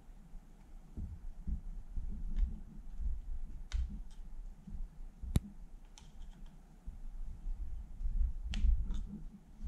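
Scattered sharp metal clicks as needle-nose pliers grip and work a small pistol part, over dull handling rumble; the loudest click comes a little past halfway.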